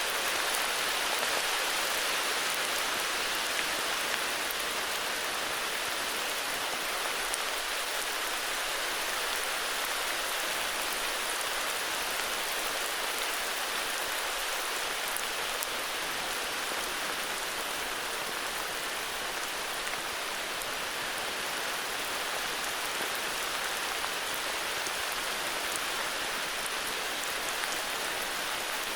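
Steady heavy rain falling, an even hiss with a faint patter of drops.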